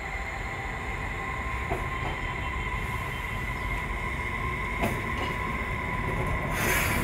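Electric street tram running along its rails with a steady high whine over a low rumble, a couple of faint clicks, and a short hiss near the end.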